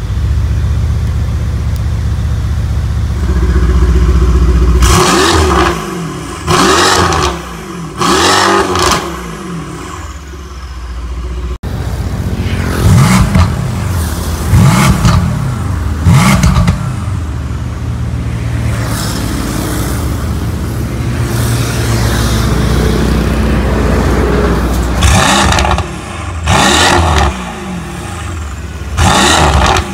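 Mercedes-AMG C63 S Coupé's twin-turbo V8 through an Armytrix valved exhaust, idling steadily between repeated short throttle blips that each rise and fall, mostly with the exhaust valves closed; the valves are opened near the end.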